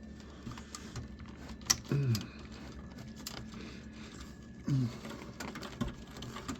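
Scattered clicks and light knocks of plastic and metal computer parts being handled as wires are pulled off, with one sharp click a little under two seconds in. Two brief low voiced hums from a man are mixed in.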